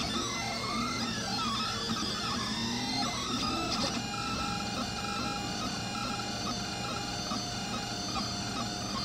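Delta 3D printer's stepper motors whining in gliding, sweeping pitches as the print head moves. About four seconds in, this changes to short repeated chirps at a quick, even rhythm, over a steady low hum.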